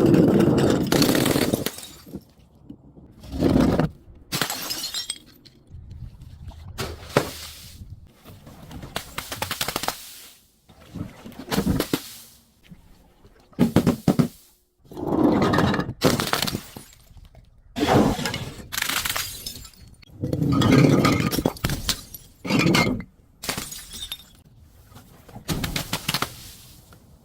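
Glass bottles breaking and being crushed: a series of shattering, crunching bursts, one every second or two.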